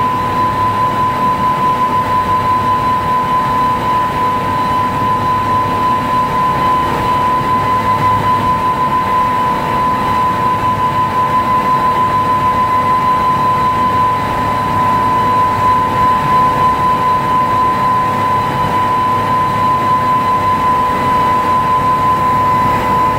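Motorboat running at high speed: steady engine drone under the rush of wind and water, with a constant high-pitched whine over the top.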